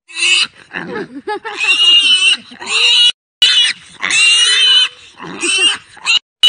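A piglet squealing repeatedly: about six loud, high-pitched squeals, each under a second long, with short pauses between them.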